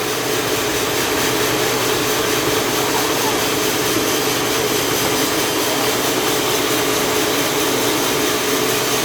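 An engine-driven saw running steadily while ripping lengthwise through a large jengkol-wood log.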